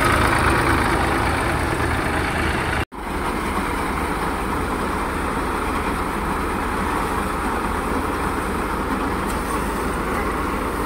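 Massey Ferguson 241 DI tractor's diesel engine running steadily under load, driving a paddy thresher while bundles of rice straw are fed in. The sound breaks off for an instant about three seconds in, then carries on a little quieter.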